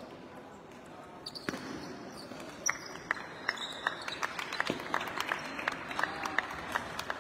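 Table tennis rally: the ball clicks sharply off the paddles and the table, about three times a second. It starts with a few knocks at the serve, about a second and a half in, and the steady rally follows from about three seconds in.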